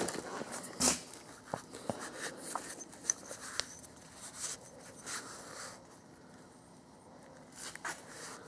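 Blue paper shop towel rustling and rubbing as a metal coolant hose neck is wiped clean by hand, with scattered small clicks and scuffs; a louder scuff comes about a second in.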